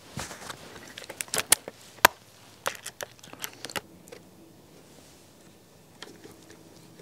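Sharp clicks and knocks of a wooden board being set against a wooden frame and a one-handed bar clamp being squeezed tight, the loudest about one and a half to two seconds in. They stop about four seconds in.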